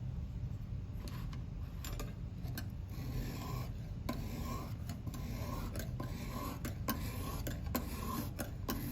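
Lansky 600-grit sharpening hone stroked along a knife edge, a scraping rasp repeated about one and a half times a second from about three seconds in. Light clicks come in the first few seconds.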